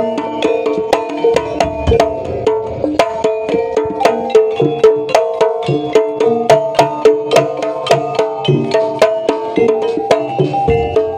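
Live Javanese jaranan music: fast, steady drumming over pitched tuned percussion playing a repeating pattern.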